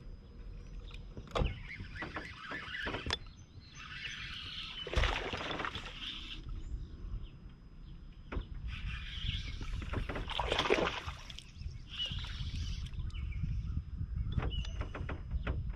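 Open-air sound on the deck of a bass boat on a lake: a steady low rumble, two bursts of hiss of about two seconds each, and a few sharp clicks.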